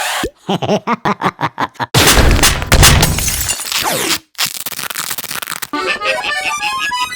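Cartoon soundtrack of comic sound effects and music: a quick run of short, bouncy pitched notes, then a loud rumbling, crashing noise about two seconds in that lasts roughly three seconds, and a jumbled musical flourish near the end.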